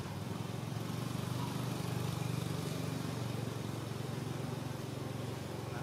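Steady low drone of an engine running.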